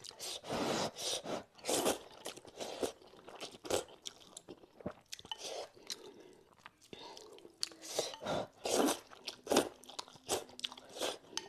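Slurping and chewing of handmade wheat noodles in broth: a string of quick wet slurps and mouth sounds, heaviest near the start and again near the end.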